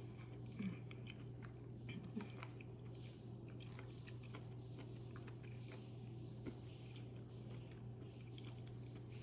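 A person chewing food, with irregular soft wet clicks and smacks, over a steady low hum.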